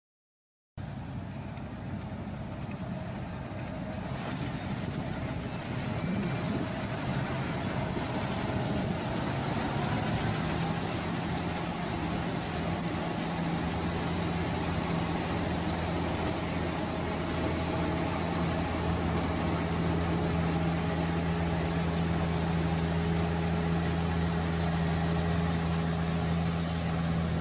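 Vineyard tractor engine running steadily. It starts abruptly just under a second in and grows a little louder over the first few seconds, with a steady low hum that strengthens about ten seconds in.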